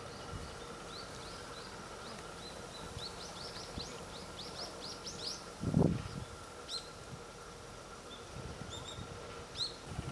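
Small birds chirping: a quick run of short rising chirps that come faster and faster, then a few scattered chirps later. A single dull low thump comes about six seconds in.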